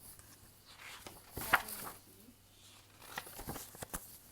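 Faint rustling of picture-book pages being handled and turned, with a few soft knocks and clicks in two short clusters, about a second and a half in and again near the end.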